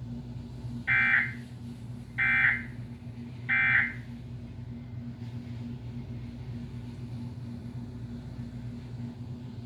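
Emergency Alert System end-of-message data tones: three short, shrill digital bursts about a second apart, marking the end of the flash flood warning. A steady low electrical hum runs underneath.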